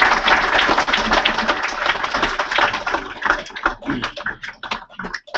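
Audience applause, dense at first, then thinning to scattered separate claps from about three seconds in.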